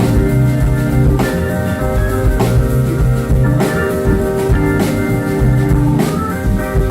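A live band playing a groove: held organ chords over a bass line and guitar, with drums striking a backbeat about once a second.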